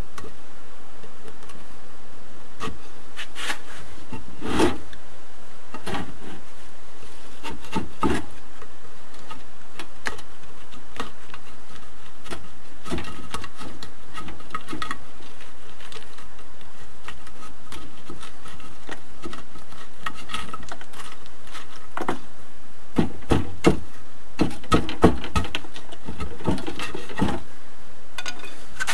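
A metal hand tool scraping grooves into an aerated concrete block in scattered short strokes. Near the end comes a quick run of sharper knocks and scraping as the grooved surface is chipped and broken away.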